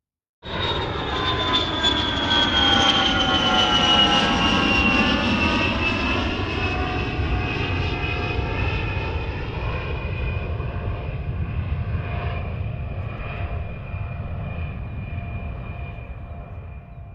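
Fighter jet engine passing by: a loud jet roar starts suddenly, its whine falling in pitch over the first several seconds, then slowly fades as the jet moves away.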